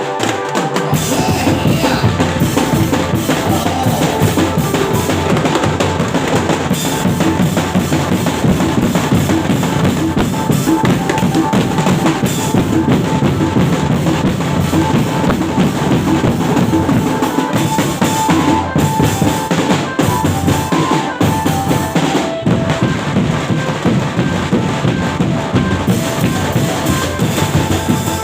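Loud music driven by a drum kit: a steady bass drum and snare beat with a melody over it.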